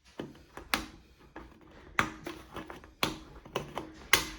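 Can opener of a Leatherman Surge multitool working on a metal can: a series of sharp, irregular clicks, about ten in four seconds.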